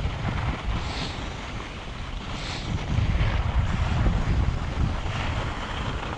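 Wind buffeting the microphone of a skier's action camera during a downhill run, a steady low rumble, with short swells of higher hiss from the skis on the snow about a second in and again midway.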